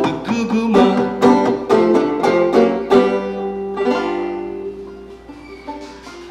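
Banjo played clawhammer style: a run of quick picked and brushed notes, then the final chord is left to ring and dies away over about three seconds, with one soft extra pluck near the end.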